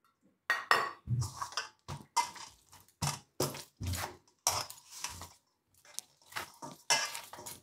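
Hands kneading soft, oiled wheat-flour dough in a stainless steel bowl: repeated squelching presses with the bowl knocking against the counter, about two a second.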